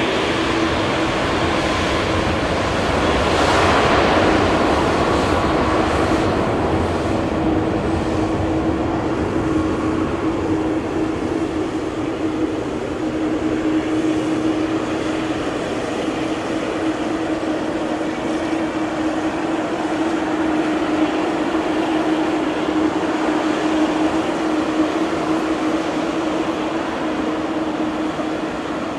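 Jet engines of a Boeing 787-9 airliner running, a steady drone with a held hum-like tone, swelling briefly about four seconds in.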